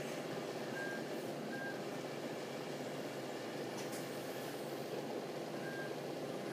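Pairs of short, high electronic beeps, the two about a second apart, with a second pair about five seconds after the first, over a steady machine noise.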